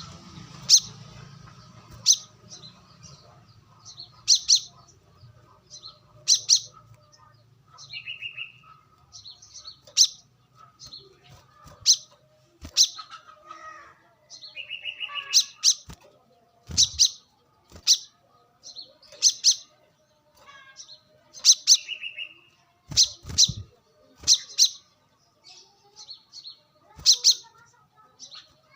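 Brown-throated sunbird (kolibri kelapa) calling: sharp, high chirps repeated every second or two, with a few short, lower trilled notes between them.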